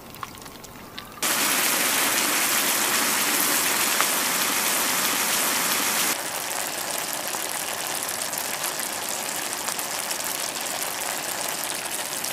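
Sliced meat and Korean chili sauce sizzling and bubbling in a hot grill pan over a gas flame. It starts suddenly about a second in and drops a little about six seconds in, but keeps going.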